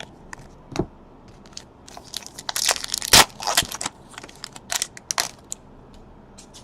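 Trading-card pack wrapper being torn open and crinkled by hand: a dull knock, then a dense burst of crackling and tearing in the middle, and a few more crinkles after it.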